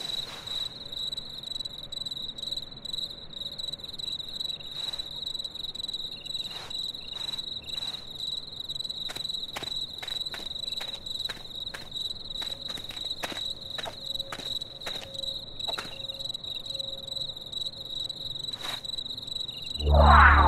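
Crickets chirping in a steady high pulsing trill, with scattered faint clicks through the middle. A louder swelling tone cuts in near the end.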